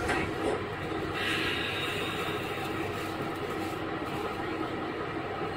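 Inside a KiHa 11 diesel railcar with its Cummins engine running steadily, a constant hum under the noise of the car, with a brief hiss about a second in.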